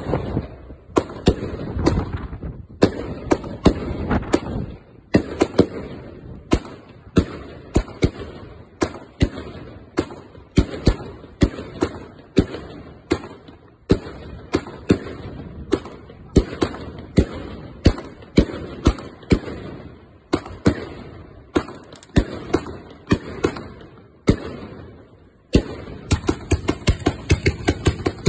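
Wolff 'The Throne' firework battery firing: a steady run of sharp launch thumps and bangs, about two to three a second. Near the end it breaks into a faster, denser volley with a steady hiss as a fan of comets goes up together.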